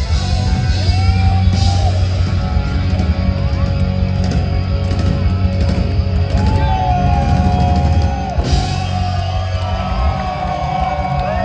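A hard rock band playing live: distorted electric guitars, bass and drums, with repeated cymbal crashes and held, bending lead notes in the second half.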